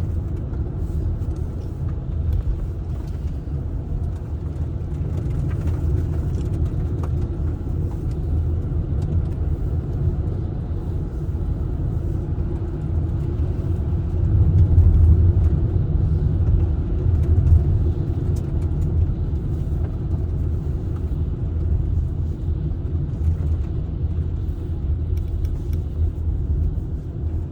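Car driving, heard from inside the cabin: a steady low rumble of engine and tyre road noise, swelling a little about halfway through.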